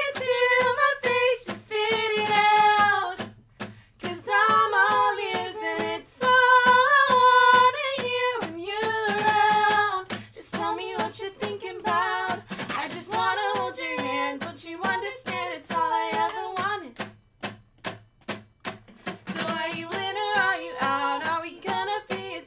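Two women singing in harmony with an acoustic guitar, over many sharp percussive clicks; the singing breaks off briefly a little past two-thirds of the way through, then resumes.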